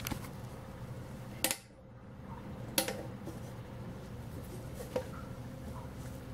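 Three sharp clicks and knocks as a sheet-metal electrical enclosure and its fittings are handled, the first about a second and a half in, over a low steady hum in a small room.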